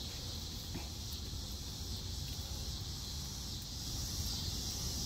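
Crickets chirping in a steady high buzz over a low, steady rumble that grows a little louder near the end.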